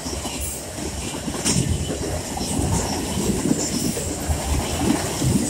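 Freight train boxcars rolling past: a steady rumble of steel wheels on rail with an irregular clatter as the wheels cross the rail joints.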